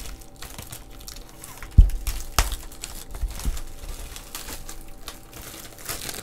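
Clear plastic shrink-wrap crinkling and crackling as it is pulled off a Pokémon booster box and crumpled by hand. There is a dull thump a little under two seconds in, a sharp tap just after, and a few lighter knocks a second later as the box is handled.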